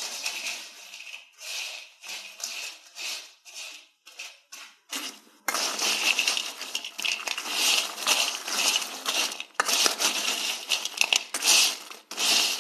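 Plastic spatula stirring and scraping French fries around a small wok, at first in separate strokes. About five seconds in it becomes dense, continuous scraping and rustling.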